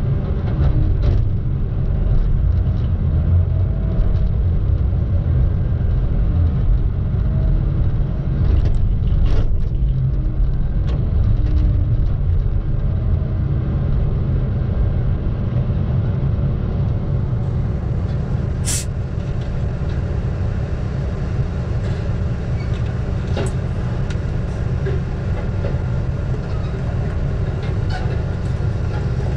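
Diesel engine of a Tigercat log loader running steadily, heard from inside the operator's cab as a deep, even rumble. A few light clicks come through it, with one sharp tick a little past halfway.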